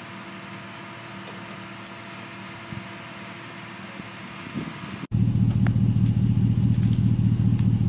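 A steady engine hum runs throughout. About five seconds in it becomes much louder and lower, an even, pulsing running sound.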